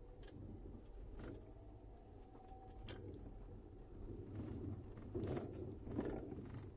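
Quiet car-cabin noise while driving slowly over a rough unpaved road: a steady low engine and tyre rumble with a few soft knocks, and several short low hoots about four to six seconds in.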